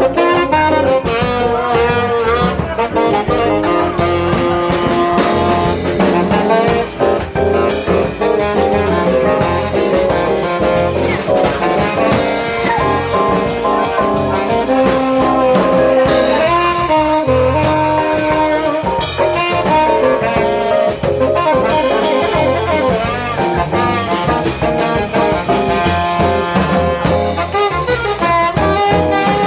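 Jazz quartet playing live, a horn carrying the melody over the band, loud and continuous.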